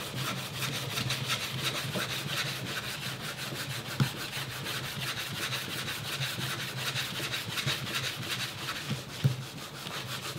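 A Naniwa rubber abrasive rust eraser is scrubbed in quick back-and-forth strokes over a rusty steel knife blade, grinding off the rust. There are a few light knocks, the clearest about four seconds in.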